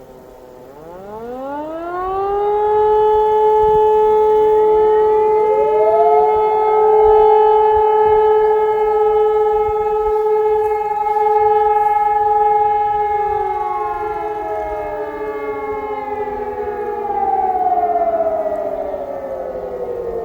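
Several civil-defence sirens, electromechanical E57s together with a Hörmann ECI-DT 1200 electronic siren, sounding one blast of the German fire-alarm signal. They wind up in staggered rising glides to a steady multi-tone chord, hold it for about ten seconds, then run down in falling glides one after another in the last few seconds.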